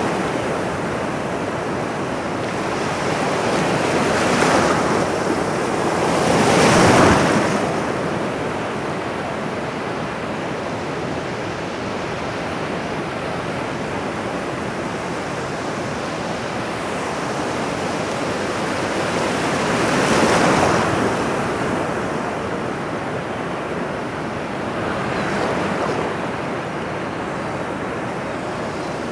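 Ocean surf: a steady wash of breaking waves, swelling up with a louder wave about four times, the strongest around seven seconds in and again near twenty seconds.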